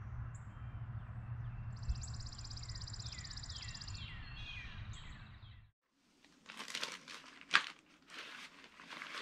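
Songbirds singing over a steady low rumble of woodland ambience: a fast high trill and a run of short falling chirps. This cuts off suddenly about six seconds in, giving way to rustling and crinkling of backpacking gear and packaging being handled, with one sharp click.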